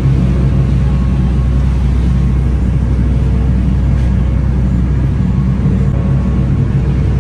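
Ferry's engines running steadily under way: a loud, unbroken low drone with a rushing noise over it.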